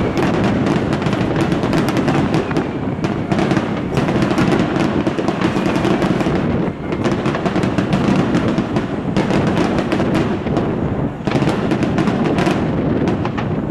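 Fireworks display: a dense, continuous barrage of aerial shell bursts and crackling reports, many bangs a second, easing briefly about 7 and 11 seconds in.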